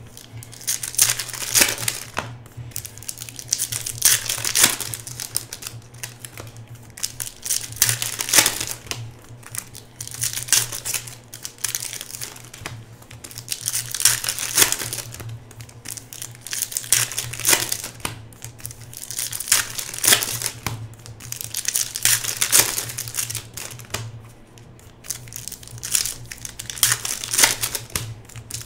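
Foil trading-card pack wrappers from 2017 Panini Contenders football packs crinkling and being torn open by hand, one pack after another, in repeated bursts every second or two over a steady low hum.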